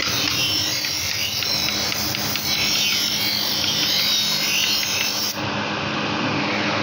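Electric bench grinder sharpening a steel knife: a steady motor hum with the hissing grind of the blade pressed against the spinning abrasive wheel. About five seconds in the grinding stops as the blade is lifted off, and the motor keeps running.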